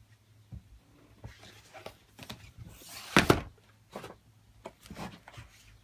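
Handling noises from unpacking: a string of short knocks and rustles, with one louder scraping rustle about three seconds in.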